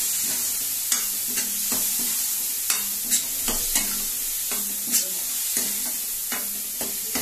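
Masala frying in oil in a metal kadhai: a steady sizzle, with a steel spoon repeatedly scraping and knocking against the pan as it is stirred.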